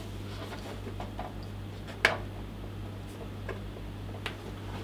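Scattered small clicks and taps of hands handling and feeling around a petrol generator's frame, with one sharper knock about two seconds in, over a steady low hum.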